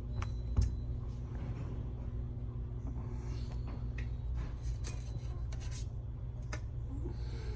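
Scattered light clicks and soft rubbing from hands handling small objects, over a steady low hum.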